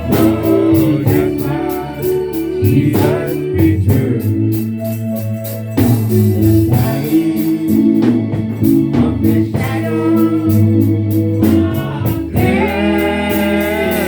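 Gospel singing with instrumental backing, over a steady, even beat.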